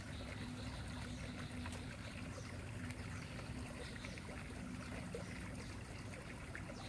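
Light rain falling on a creek and the plants along its bank: a quiet steady hiss with many small, scattered drop ticks.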